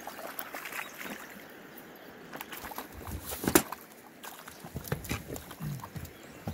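Moving river water with scattered clicks and knocks of handling close to the microphone, the loudest a thump about three and a half seconds in.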